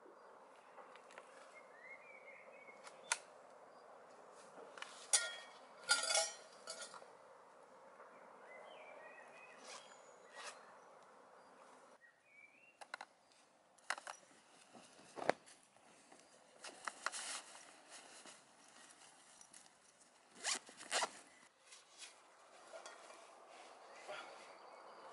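A canvas backpack being packed and zipped shut: rustling fabric, a zipper pulled in short strokes, and small metal clinks from a tin can and a steel cup.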